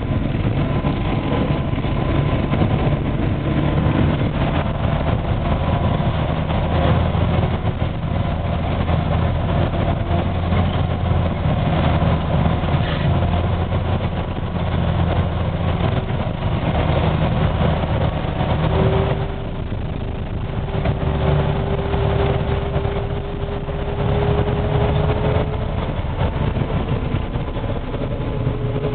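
Tracked snowcat trail groomer's engine running steadily. Past the middle, a faint whine creeps slowly upward in pitch for several seconds.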